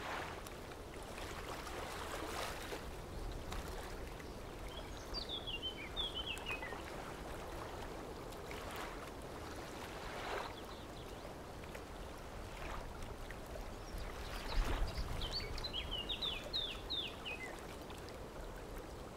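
A songbird sings two short phrases of quick, falling chirps, about five seconds in and again about fifteen seconds in, over faint steady background noise. A few faint knocks and a soft low thump about fifteen seconds in.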